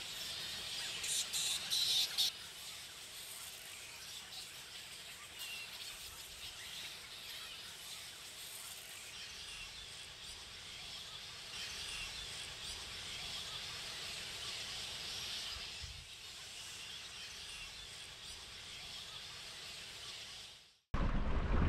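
A large colony of giant fruit bats (flying foxes) chattering and squeaking, over a steady high hiss of calls. There are louder, dense squeals in the first couple of seconds, and the sound fades out near the end.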